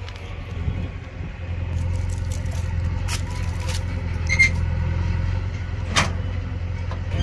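Mahindra 575 DI tractor's diesel engine idling with a steady low rumble. Several sharp clanks and knocks are heard as the driver climbs up onto the tractor and settles into the seat, one near the middle with a brief metallic ring.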